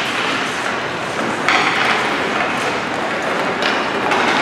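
Hockey game in play: a steady rush of rink noise broken by sudden knocks, about a second and a half in and twice near the end.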